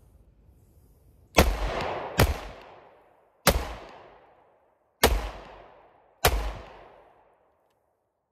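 Five 9mm pistol shots from a PSA Dagger Compact firing Federal American Eagle 70-grain lead-free indoor practice rounds. The shots are unevenly spaced, roughly a second apart, and each is followed by an echo dying away.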